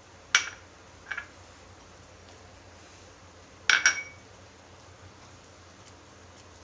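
A few sharp clinks of a utensil knocking against a pan as chopped almonds and cashews go into simmering milk: one about a third of a second in, a lighter one near a second, and a louder cluster of two or three near the four-second mark, over a faint steady background.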